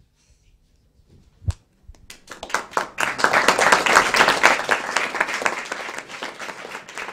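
Audience applause: a small crowd clapping, swelling a couple of seconds in and then slowly tapering off. A single knock comes just before the clapping starts.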